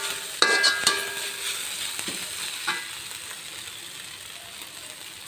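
Metal spatula scraping and knocking against a wok while a sardine and egg filling is stirred, over a steady sizzle of frying. There is a ringing scrape about half a second in and a few more knocks in the next couple of seconds, then mostly the sizzle, getting quieter toward the end.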